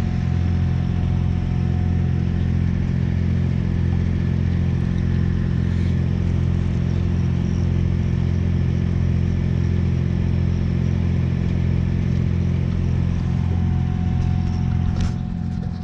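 A concrete boom pump truck's diesel engine running at a steady speed, giving a loud, unchanging low drone. A single sharp click comes near the end.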